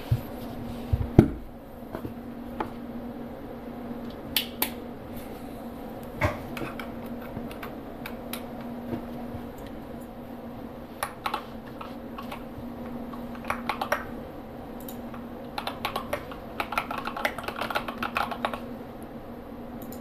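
Mechanical keyboard with lubed Gateron Yellow linear switches, SA-profile keycaps and damping under the PCB being typed on: scattered keystrokes at first, then a quicker run of typing near the end. In the first second or so there are a few low thumps as the board is handled and set down.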